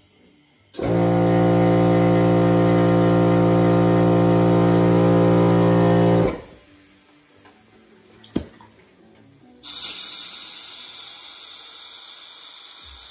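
Air-ride compressor running with a steady hum for about five seconds as the air bags inflate and the car's front rises, then a sharp click and a sudden loud hiss of air being let out of the bags as the car drops, slowly fading.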